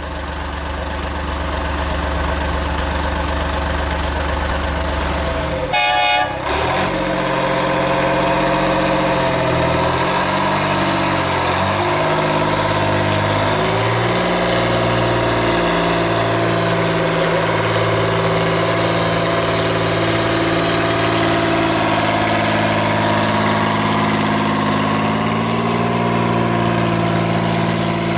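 Small narrow-gauge Plymouth diesel locomotive engine running, with a short horn blast about six seconds in. Afterwards the engine speed rises and falls several times, then it settles into a steady run.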